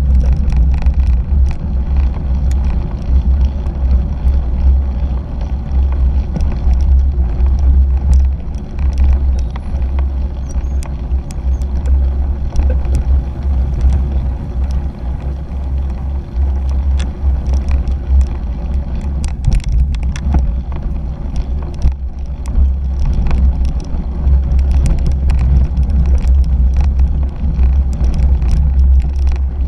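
Heavy low rumble of wind and vibration on a handlebar-mounted GoPro Hero 3 as a 2017 Fuji Jari 1.5 cyclocross bike rolls over rough dirt. Frequent small clicks and rattles of the bike over the bumps run through it.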